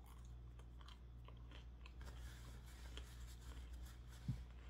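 Close-miked chewing with the mouth closed: faint moist clicks and smacks over a steady low hum, with a single soft thump near the end.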